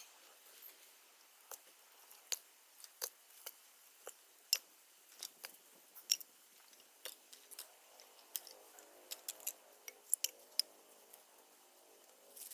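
Wood campfire crackling: irregular sharp pops and snaps, one or two a second.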